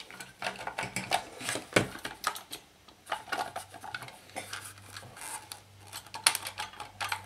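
Irregular metallic clicks and rattles as the chrome wire guard and metal parts of a 1970s AEPI desk fan are handled and worked loose during disassembly.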